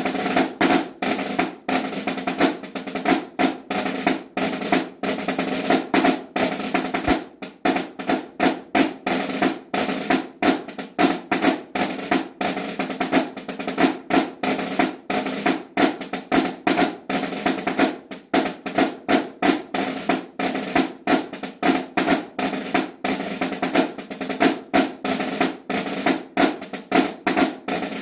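Solo pipe-band snare drum playing a 2/4 march, a dense run of rolls, flams and accented strokes. The snares give a bright crisp buzz behind each stroke, with a ringing tone from the drumhead.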